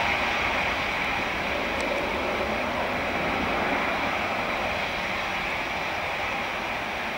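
Boeing 757's twin jet engines running at high power as the airliner rolls away down the runway: a steady rushing sound that slowly fades.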